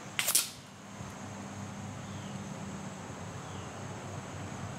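A single shot from a .22 air rifle, a sharp crack about a quarter of a second in, over a steady high-pitched chirring of insects.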